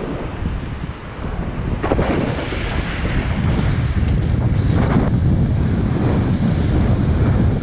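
Wind buffeting the microphone over rushing, splashing water under a kiteboard, getting louder about two seconds in, with brief surges of spray.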